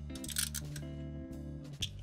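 Background instrumental music with steady held low notes, with a few short clicks near the start and again near the end.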